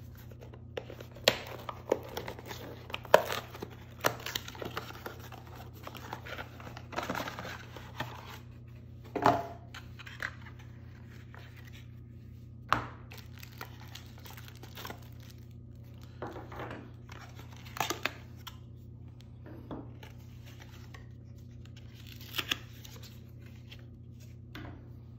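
Cardboard box and paper inserts being opened and unpacked by hand: rustling, crinkling and tearing of card and paper, with scattered sharp taps and clicks as the contents are handled.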